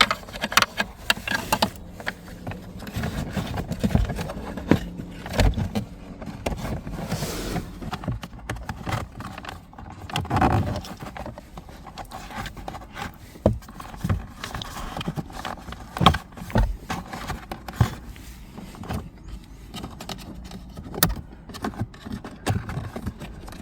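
A power cable being pushed and pulled behind loose plastic car footwell trim: irregular knocks, clicks and scraping of the cable and panels being handled.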